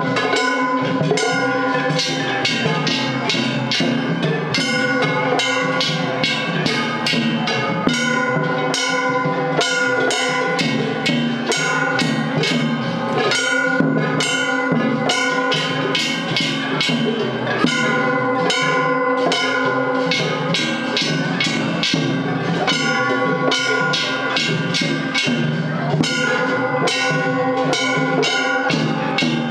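Kumagaya festival float music: large hand-held brass gongs struck with mallets in a fast, steady rhythm, ringing over drums.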